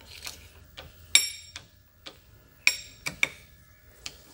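Dividing head being worked by hand: a string of sharp metallic clicks and clinks from the index crank, its plunger pin and the sector arms against the perforated index plate. Two of the clicks, about a second and a half apart, are louder and ring briefly.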